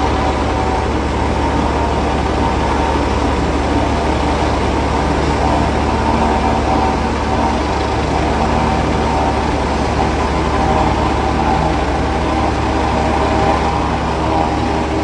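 Bell 429 twin-turbine helicopter running at high power on the ground: a steady, loud, rapid beat from the main rotor over a constant turbine whine, its rotor wash blowing up dust ahead of lift-off.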